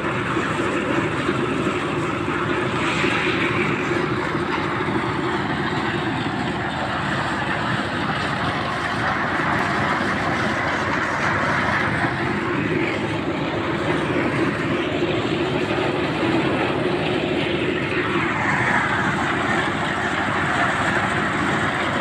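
Concrete mixer running steadily at a building site: a constant engine hum under a shifting rushing noise.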